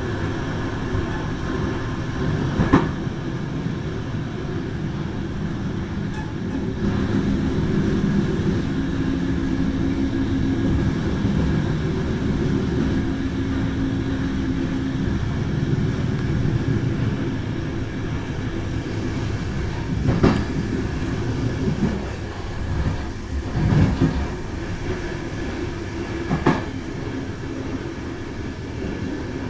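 Passenger train running along the track, heard from the back door of a carriage: a steady rumble of wheels and running gear with a few sharp knocks, about four of them, mostly in the second half.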